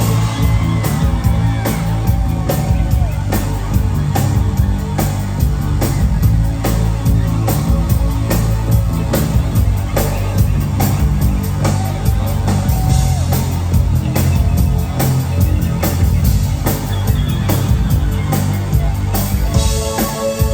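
Live new wave band playing through a club PA, with a steady drum beat, bass and synthesizer.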